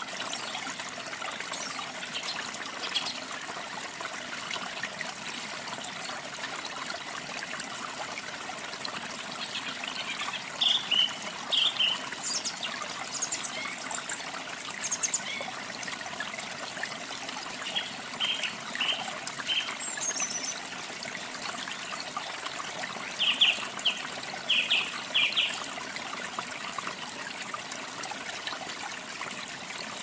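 Stream water trickling and running steadily, with short high bird chirps coming in small clusters several times.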